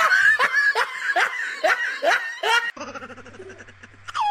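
A person laughing in about seven short falling 'ha' bursts, roughly two a second, for about three seconds. Then it goes quieter over a low hum, and a cat's meow starts right at the end.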